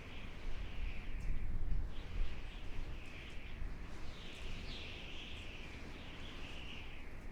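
Howling desert wind: gusts rumbling low, with a high whistling howl that wavers up and down and swells loudest about halfway through.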